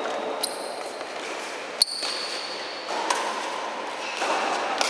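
Badminton rackets striking a shuttlecock in a rally: four sharp hits a little over a second apart, the loudest just under two seconds in, each with a short high ringing ping from the strings.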